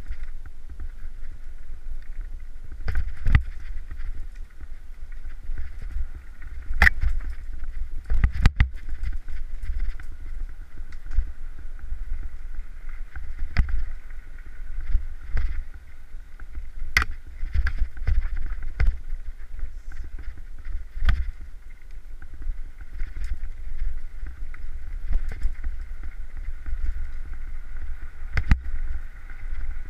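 Mountain bike running fast downhill on a rough dirt trail: steady tyre and wind rumble on the microphone, with sharp knocks and rattles every few seconds as the bike hits rocks and roots.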